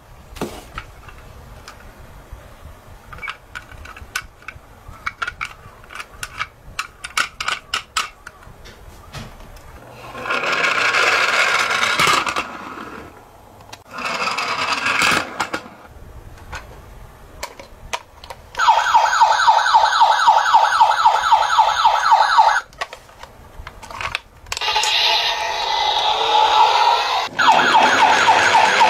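Small die-cast toy cars clicking and knocking, then a toy ambulance's electronic siren sounding in several stretches as a fast, repeating warble, loudest in the second half.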